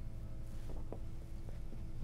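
Quiet room tone with a faint steady hum and a few soft ticks, from hands working darning yarn through knitted fabric.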